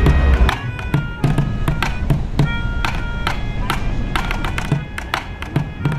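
Music: quick, short plucked-sounding string notes over a regular low pulse, with a brief low rumble in the first half second.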